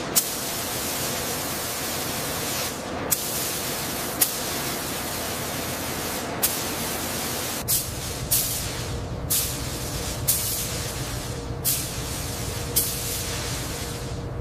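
Paint spray gun spraying primer with a steady hiss, broken by sharp clicks every second or two.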